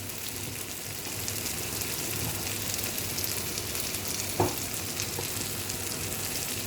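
Bitter gourd (karela) pieces frying in a pan, a steady sizzle with fine crackling as the last of the water cooks off. A brief knock sounds about four and a half seconds in.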